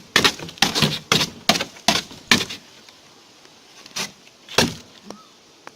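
A homemade plywood-bladed knife stabbing into a cardboard box again and again: about eight quick thrusts in the first two and a half seconds, then two more spaced out.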